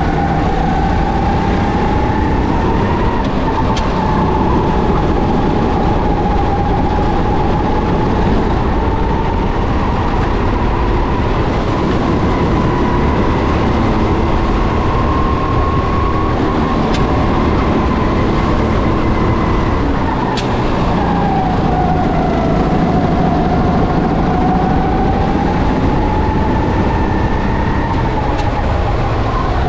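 Racing kart engine running at high revs, its pitch climbing and dipping as the kart brakes and accelerates through the lap, with one deeper dip and climb about twenty seconds in.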